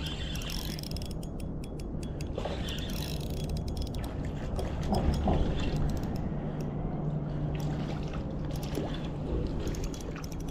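Shimano Stradic 1000 spinning reel being cranked to bring in a hooked fish, its gears and mechanism clicking in quick runs of ticks.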